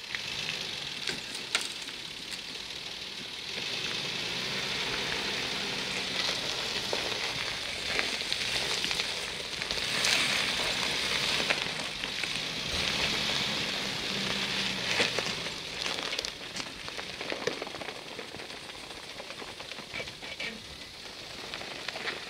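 Nissan Safari Y61 4x4 crawling over rutted dirt: its engine running low and steady under a constant outdoor hiss, with scattered crackles and clicks.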